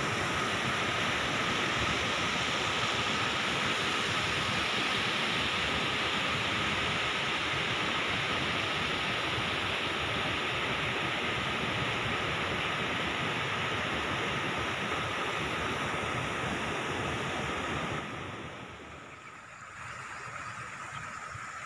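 Water rushing over rock in a rocky stream bed, a steady even rush with a thin, steady high tone under it. It drops sharply about eighteen seconds in and comes back weaker near the end.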